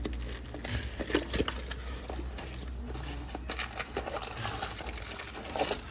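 A box of new brake pads being opened and handled: packaging rustling with scattered small clicks and knocks.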